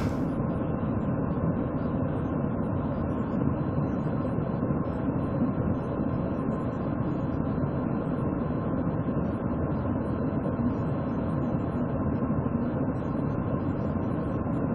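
Steady low rumble of an idling car, picked up by the patrol car's dashcam microphone.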